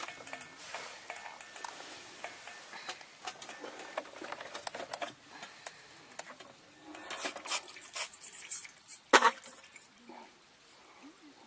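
Irregular light clinks and knocks of cups, pots and utensils being handled and stirred while making coffee, with one sharper knock about nine seconds in.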